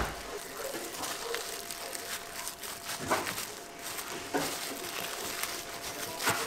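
Bamboo sushi mat and plastic-gloved hands handling a gimbap roll on a cutting board: light rustling and crinkling with a few short clicks and knocks, over steady kitchen background noise.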